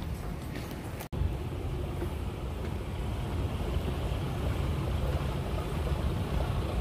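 Steady low rumble and hiss of a large airport terminal concourse while riding a moving walkway, with a brief dropout about a second in.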